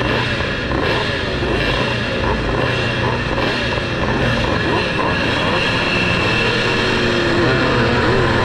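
A line of vintage motocross bikes, including the rider's own 1974 Maico 440 two-stroke, revving at the starting line, engine pitches rising and falling. In the second half the pack launches off the line at full throttle and the engine sound gets louder.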